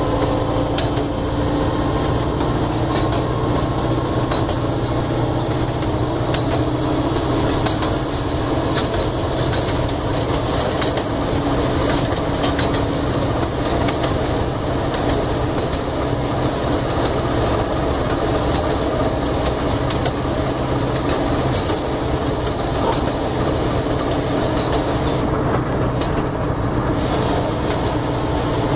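Small ride-on park train running along its track, heard from aboard: a steady rumble and rattle with a clickety-clack of wheels over rail joints.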